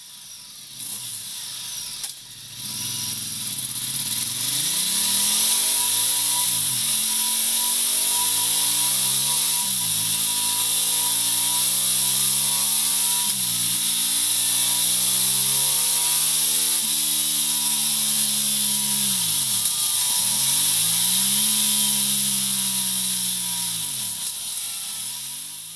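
Ducati Multistrada 1200's L-twin engine and exhaust under hard acceleration through the gears: the pitch climbs, then drops sharply at each upshift, about every three seconds, before easing off near the end.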